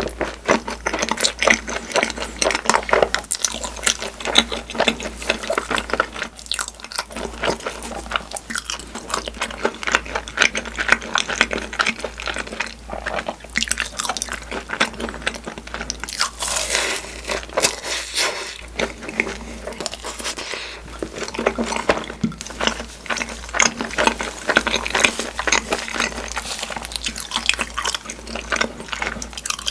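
Close-miked mouth sounds of a person chewing and biting takoyaki (octopus balls), a continuous run of short wet clicks and smacks, over a steady low hum.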